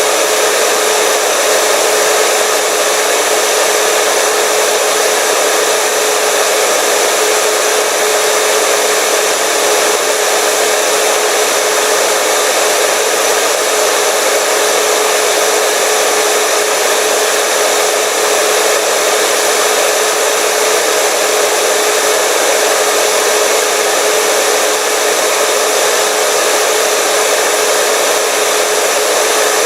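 Hair dryer running continuously at a steady speed: a loud, even blowing rush with a constant motor hum.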